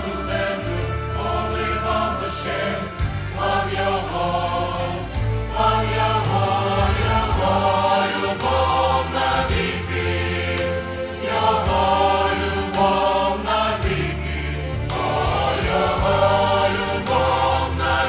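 Mixed choir of men's and women's voices singing a hymn in Ukrainian in full chords, over a sustained low instrumental accompaniment.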